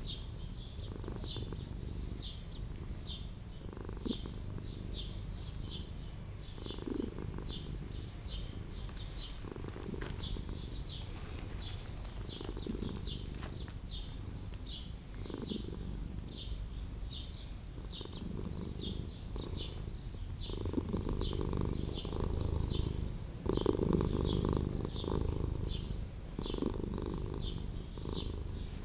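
Stray tuxedo cat purring while being stroked, a low rumble that grows louder about two-thirds of the way through. A high chirping repeats about three times a second in the background.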